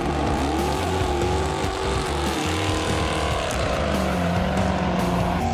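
Supercharged Hemi V8 of a Dodge Charger running hard in a burnout, its pitch rising and falling, with tyres squealing.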